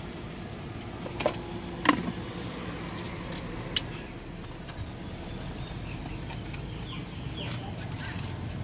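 A few sharp clicks and knocks from a spoon, a plastic cup and a clear plastic dome lid being handled, the loudest a ringing knock about two seconds in, over steady background noise.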